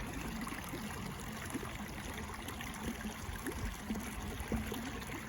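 Running water trickling and bubbling steadily, with many small gurgles.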